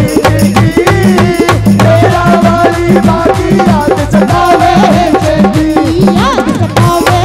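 Instrumental break in a Haryanvi folk devotional song: a fast, regular hand-drum beat with other percussion under a bending melody line.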